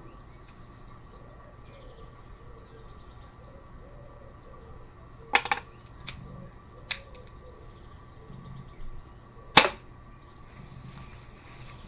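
Air pistol fired once: a single sharp crack near the end, the loudest sound here. About halfway through there is a quick cluster of sharp mechanical clicks, then two fainter single clicks, as the pistol is handled and readied.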